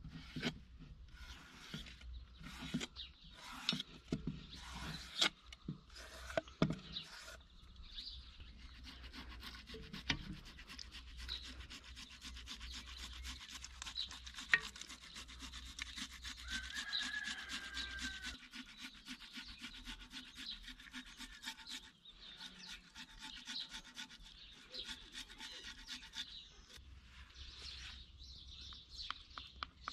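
Rapid, repeated scraping strokes during food preparation, with a few separate strokes in the first seconds before settling into a fast run. A bird chirps briefly around the middle.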